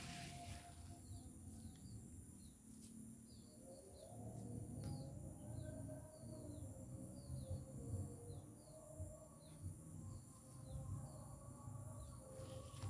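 A small bird chirping over and over, short falling chirps about two a second, over a low rumble.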